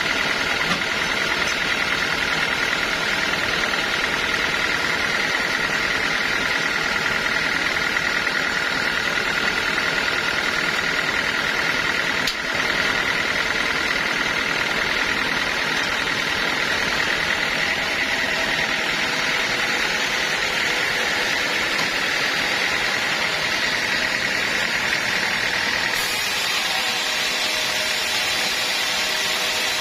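Sawmill saw running steadily through teak logs, a continuous machine noise with a high whine. About 26 seconds in the whine fades and the sound turns to a harsher, higher hiss.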